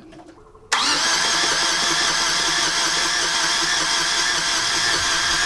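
Yanmar marine diesel engine cranking on its starter motor without catching, a steady mechanical grind that starts suddenly about a second in. The starter turns the engine over at about half the speed it should, too slow to start it.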